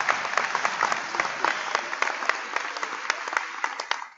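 Congregation applauding, a dense patter of many hands clapping that thins out and fades near the end.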